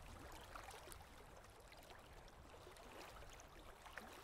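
Near silence: faint steady background hiss with a few tiny ticks.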